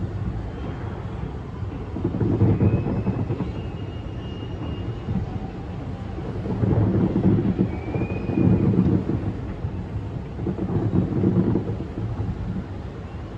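Fireworks bursting at a distance, their booms blurred into a rolling, thunder-like rumble that swells and fades several times.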